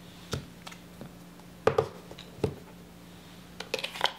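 The cardboard iPhone box and its paper insert being handled with light taps and clicks. There are a few scattered knocks, the loudest pair about a second and a half in, and a quick flurry of clicks near the end.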